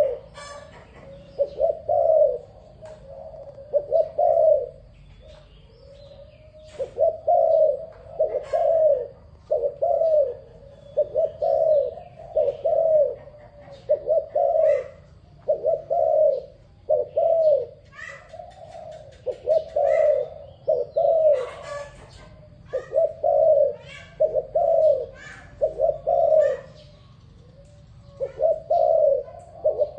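Dove cooing over and over in a steady run of low, hollow coos, grouped in short phrases with pauses of about a second between them. Faint higher chirps of small birds sound in the background.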